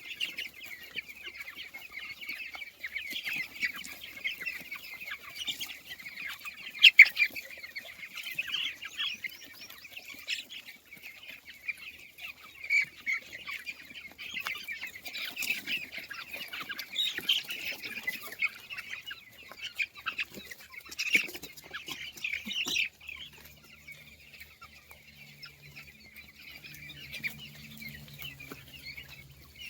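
A brood of young desi chicks peeping continuously, many shrill high calls overlapping, with one much louder peep close by about seven seconds in.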